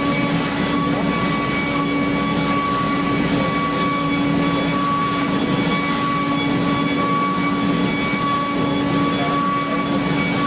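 Factory machinery running steadily: a constant hum with a steady high whine over a background rush of noise.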